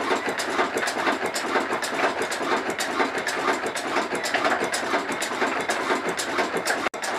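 Ruston Hornsby stationary diesel engine running steadily, a continuous mechanical clatter of rapid sharp clicks from its working parts.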